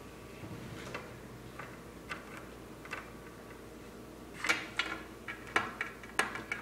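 Small plastic Littlest Pet Shop figures tapping and clicking as they are set down and moved on a wooden tabletop: a few light clicks, then a quicker run of sharper taps about four and a half seconds in.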